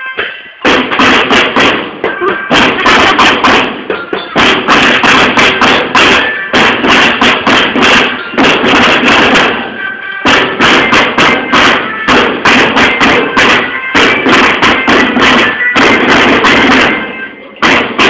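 Marching drum band percussion: snare and bass drums beating a loud, fast, repeated pattern, with the sound breaking off briefly about four, ten and seventeen seconds in. A melody instrument is faintly heard beneath the drums.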